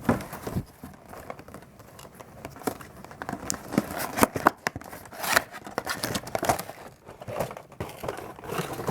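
A boxed collector doll's packaging being handled: irregular crinkling and crackling, with scattered small clicks and taps.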